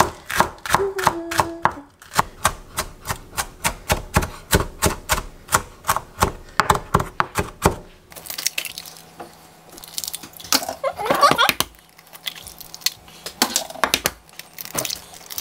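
Chef's knife chopping a large green onion on a wooden cutting board: quick, even strikes of the blade on the board, about five a second, stopping about eight seconds in. After that come quieter, irregular sounds over a faint low hum.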